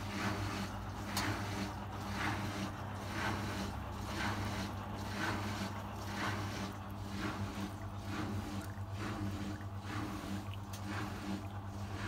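Arçelik 4120 S front-loading washing machine running its drum-cleaning cycle: a steady motor hum, with water sloshing in the turning drum about once a second.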